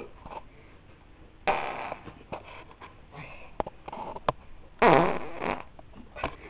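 A person farting twice: a short one about a second and a half in, then a longer, louder one about five seconds in.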